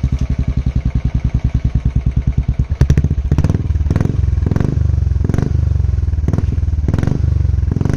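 Royal Enfield Bullet 350's single-cylinder engine running through a Dolphin aftermarket silencer with the catalytic converter still fitted, giving a deep, bassy exhaust note. It pulses fast and evenly at first. From about three seconds in it grows louder and is revved, with sharp cracks roughly twice a second.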